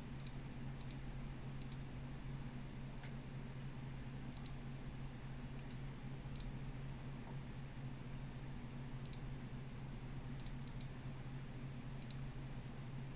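Computer mouse clicking now and then, about ten sharp clicks spread unevenly, some in quick pairs, over a steady low electrical hum.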